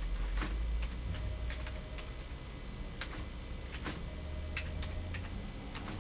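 Computer keyboard being typed on: slow, irregular key clicks as a short command is entered, over a low steady hum.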